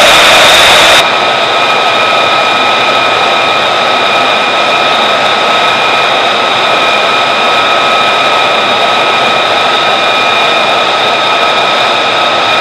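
F-35's Pratt & Whitney F135 turbofan idling on the ramp: a steady jet rush with a high whine of several steady tones. About a second in, the sound turns a little quieter and less hissy.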